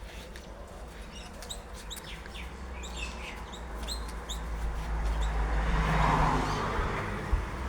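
Small bird chirping: a quick run of short, high chirps in the first half, with a rushing noise that swells up and peaks about six seconds in.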